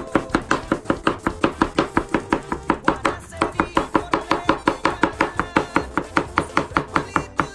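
Kitchen knife rapidly chopping a cucumber on a plastic cutting board: a steady run of quick knife strikes, about five or six a second.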